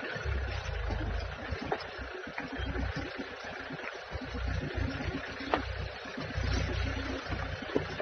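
Low rumble of an idling vehicle engine that swells and fades, with a few faint clicks over it.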